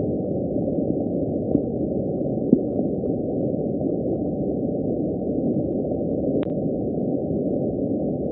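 Playback of the NOAA hydrophone recording of the 'Bloop', sped up 16 times from sound too low to hear: a steady low rumble of ocean noise with faint upward sweeps. The rumble comes from ice quakes as large icebergs crack and fracture.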